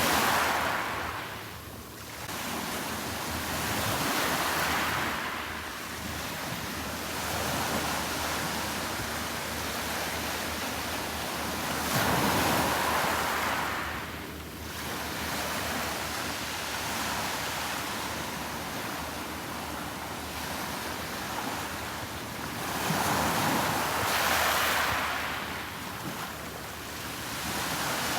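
Sea waves breaking and washing up on the shore: a steady rush that swells louder several times as each wave comes in and falls away.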